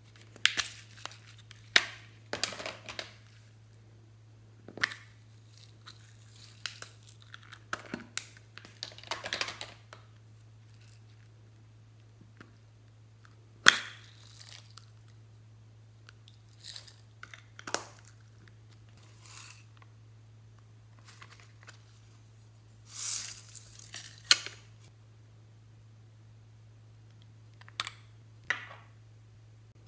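Hard plastic toy pieces clicking, snapping and rustling as they are handled and pried apart, with one loud snap about halfway and a short rattling pour of sprinkles about three-quarters through. A steady low hum runs underneath.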